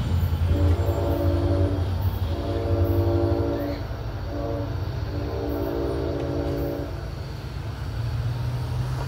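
New Jersey Transit train's horn sounding the grade-crossing pattern: long, long, short, long. The train's low rumble runs under the first blasts and fades about four seconds in.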